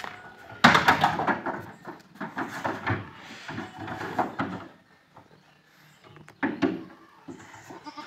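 Wooden knocks and scrapes as goats are lifted into a wooden crate and their hooves clatter on a pickup truck's plank bed, loudest about half a second in, with a second cluster of knocks a few seconds later.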